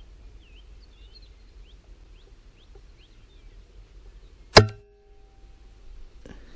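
A single shot from a Rat Works Reaper air rifle about four and a half seconds in: one sharp crack with a brief ring after it, followed by a fainter click about a second and a half later.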